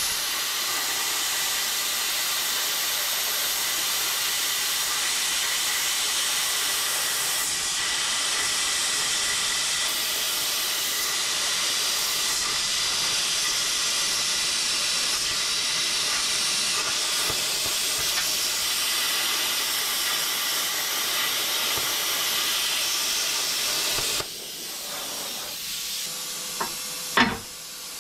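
Hypertherm handheld plasma cutter cutting through the steel trailer tongue: a steady, loud hiss of the air and arc that stops about four seconds before the end. A few sharp metallic knocks follow.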